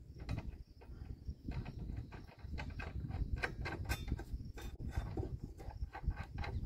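Ratchet wrench clicking in quick runs on the blade bolt of a riding mower's cutting deck as the blade is taken off for sharpening, over a low rumble.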